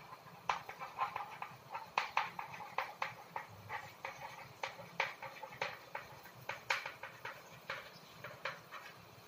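Chalk writing on a blackboard: irregular sharp taps and short scratchy strokes, a few each second, as letters are written.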